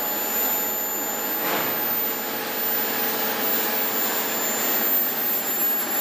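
Induction forging furnace running: a steady rushing machine noise with a faint, thin high-pitched whine over it.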